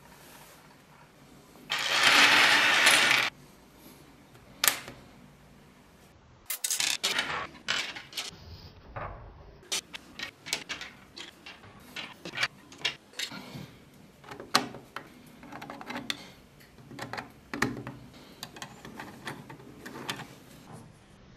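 3D-printed plastic toy log pieces clicking and knocking against each other and the table as they are snapped together by hand, in many irregular sharp clacks. About two seconds in, a loud burst of noise lasts about a second and a half.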